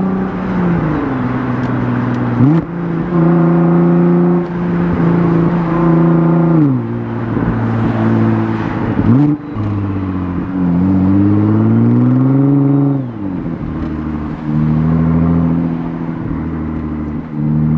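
Nissan GT-R R35's twin-turbo V6, fitted with Cobb intakes and a non-catted midpipe, running under way: the engine note cruises, drops and jumps up in pitch with gear changes several times, with one longer rising pull past the middle before a shift brings it down.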